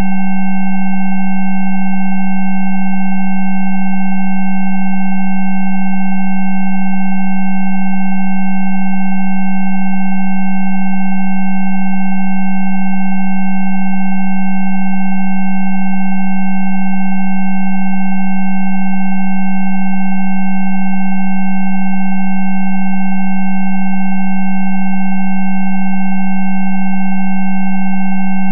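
Electronic Rife frequency tones played continuously: a loud, steady low pure tone with several fainter higher tones layered over it, none changing in pitch or level.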